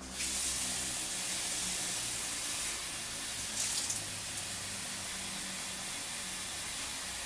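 Water poured in a steady stream into a pan of stew to cover it, a continuous splashing hiss that starts suddenly.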